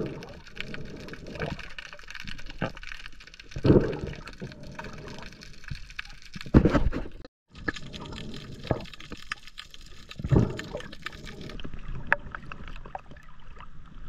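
Sea water sloshing and bubbling around an action camera in the water, with a stronger muffled surge every three to four seconds.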